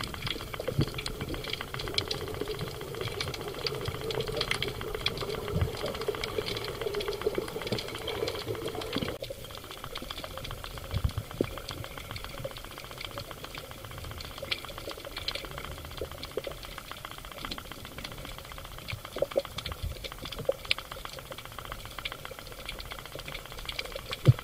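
Underwater ambience picked up by a submerged camera: a dense, continuous crackle of rapid clicks. A steady low drone runs under it and stops about nine seconds in.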